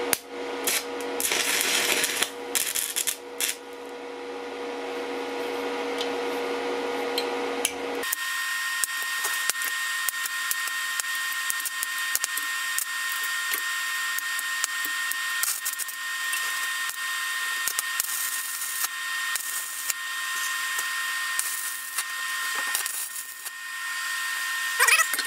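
Stick (MMA) electrode arc welding: the arc crackles and sizzles steadily with sharp pops as galvanized steel angle brackets are welded onto rebar, over the steady hum of the welding machine, whose tone shifts higher about eight seconds in.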